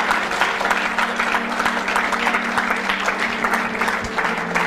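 Audience applauding: dense, many-handed clapping.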